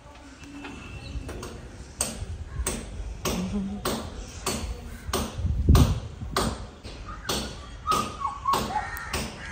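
A lamb's hooves tapping on a hard tiled floor as it walks about, a string of sharp irregular clicks at about two to three a second.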